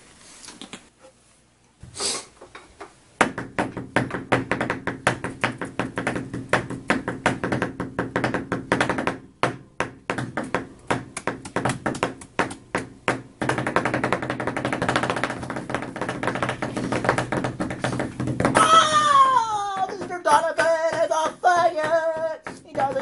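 Hands tapping and knocking fast, several strikes a second, from about three seconds in, over a steady low hum. Near the end a man's voice wails with sliding pitch.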